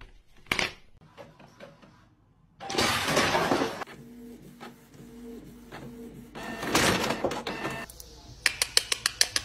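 Canon printer running, its motors whirring in a pulsing hum broken by two louder rushing stretches. A quick run of sharp clicks follows near the end.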